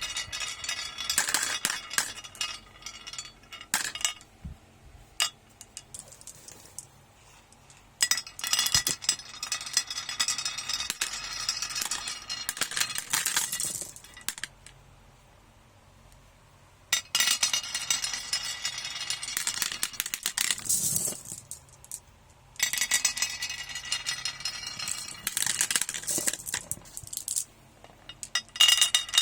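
Glass marbles rolling and clattering down a marble run, a dense run of clicks and clinks that comes in several stretches with short lulls between them, the longest about halfway through.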